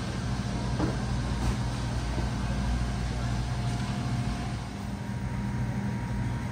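Steady low hum over a constant background hiss: store refrigeration and ventilation machinery running around an open refrigerated display case.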